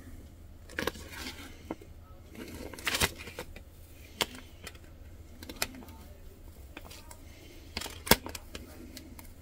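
Fingertip rubbing and pressing an adhesive vinyl stencil down onto an amber glass bottle: scattered crinkles and sharp clicks, the loudest near the end, over a low steady hum.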